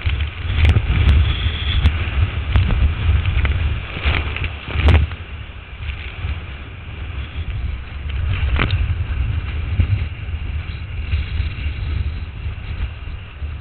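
Whitewater rapid rushing and splashing around a kayak, with a heavy rumbling buffet on the microphone. A few sharp splashes cut through, the loudest about five seconds in.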